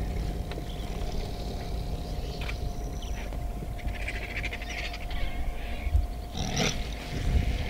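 Vultures squabbling at a carcass, giving several harsh, rasping hisses and calls. The loudest comes about six and a half seconds in, over a steady low hum.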